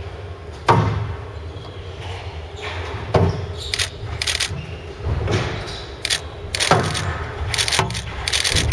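Squash rally: the ball is struck hard about five times, a sharp crack every second or two, with short high squeaks of shoes on the wooden court floor in the second half.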